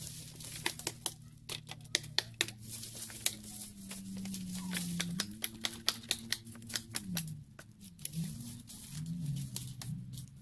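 Dry, rotten cedar log being wrenched loose and pulled up from the forest floor: a quick irregular run of sharp cracks and snaps of splintering wood and breaking twigs, with dry leaves rustling.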